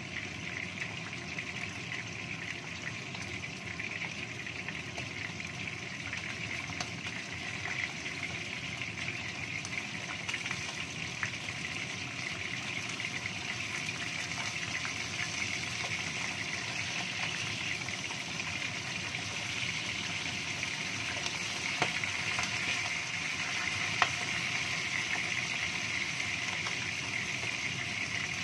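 Pieces of shark frying in hot oil in a wok: a steady crackling sizzle that grows slightly louder, with two sharp clicks in the last third.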